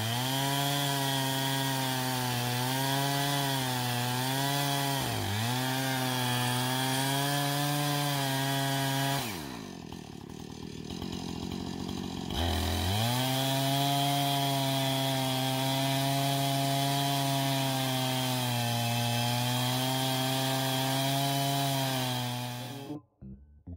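Chainsaw running at full throttle in a chainsaw mill, ripping lengthwise through a poplar log, its pitch dipping and recovering as the cut loads it. About nine seconds in the throttle is let off and the engine falls to a low idle for about three seconds, then revs back up and carries on cutting. The sound cuts off suddenly near the end.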